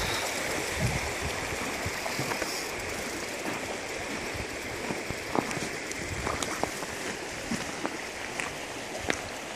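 Shallow creek water flowing steadily, with a few sharp clicks scattered through it, the loudest about five and a half seconds in.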